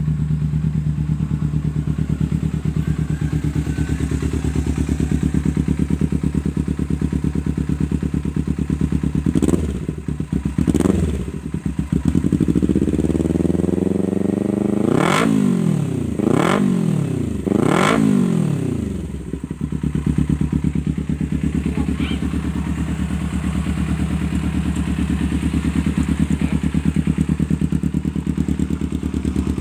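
Kawasaki Ninja 250R parallel-twin engine with a Reed Line aftermarket exhaust, idling steadily. About ten seconds in it is blipped twice, then revved up and given three sharp revs in quick succession before dropping back to a steady idle.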